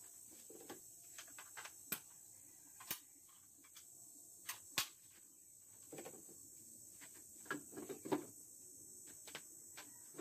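Scattered clicks and knocks of tools and wood being handled on a workbench, the sharpest about five and eight seconds in, over a steady high-pitched insect chirring.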